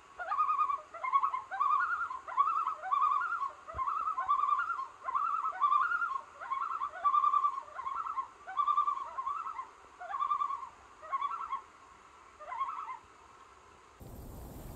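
Common loon calling: a long series of quavering, wavering phrases, each opening with an upward slide, repeated about one and a half times a second and stopping near the end.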